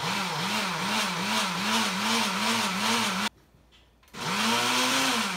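Blender grinding granulated sugar into homemade confectioner's sugar, run in two bursts: the motor's pitch wobbles up and down about three times a second, cuts out a little past three seconds in, then starts again about a second later.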